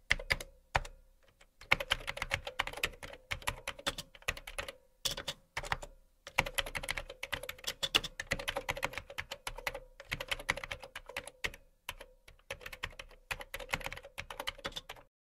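Keyboard typing sound effect: rapid key clicks in runs broken by a few short pauses, stopping shortly before the end.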